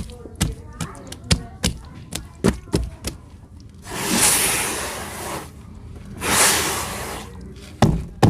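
Chunks of packed red sand crumbling: a run of sharp taps and cracks, then two longer hissing spills of loose sand about four and six seconds in, and a couple of knocks near the end.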